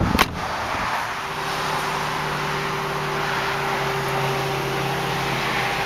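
Trunk lid of a 2005 Volkswagen Passat shut with a sharp double thud, followed by a steady low hum with a rushing noise.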